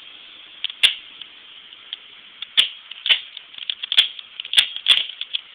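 Crosman C11 CO2 pistol firing a string of shots: about six sharp cracks at uneven spacing, two of them fired close together near the end, with fainter clicks between.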